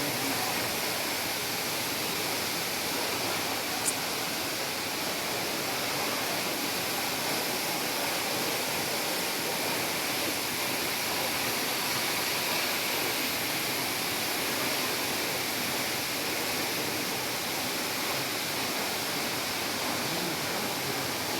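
Steady, even rushing of a waterfall, with one brief high tick about four seconds in.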